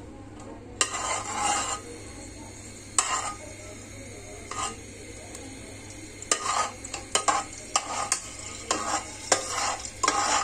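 Metal slotted spoon stirring and scraping through whole cardamom pods and cinnamon sticks in hot oil in a non-stick pot. The strokes come irregularly, a few at first and then quick and frequent in the second half.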